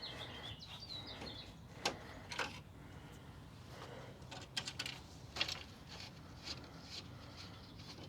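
Faint bird chirps in the first second and a half, then a handful of light clicks and scrapes from handling the grille's screws and hardware.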